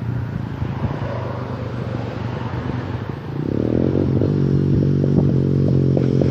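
Honda TRX250X ATV's single-cylinder four-stroke engine running through an aftermarket Two Brothers exhaust, getting louder about three and a half seconds in and holding there.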